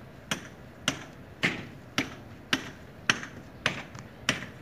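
Eight evenly spaced hammer blows, a little under two a second, each a sharp knock with a short ring.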